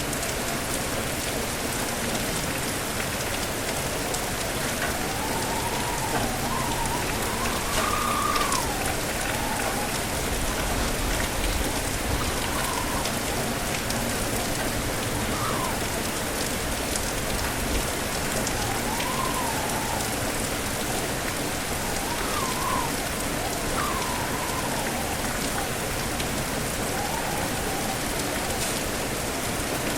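Steady heavy rain with strong wind, the gusts whistling now and then in short rising and falling tones.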